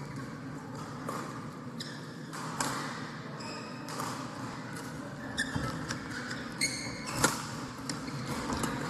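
Badminton rally: sharp strikes of the racket on the shuttlecock every few seconds, with shoes squeaking briefly on the court floor.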